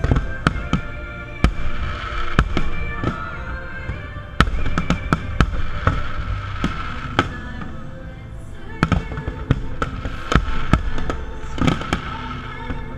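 Aerial firework shells bursting in an irregular string of sharp bangs, with music playing underneath.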